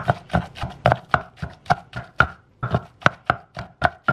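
Wooden pestle pounding cooked fish flesh and chili paste in a clay mortar: a steady run of thuds at about four strokes a second, as the fish is worked into a fine paste.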